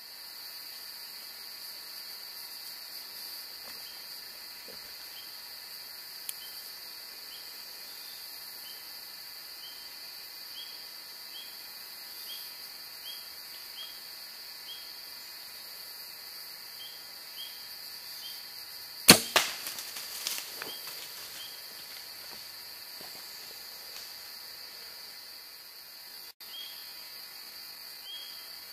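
A bow being shot, heard as one sharp, loud snap about two-thirds of the way through, followed by a few quieter knocks and rustles. Under it runs a steady high insect drone with a faint repeated chirp.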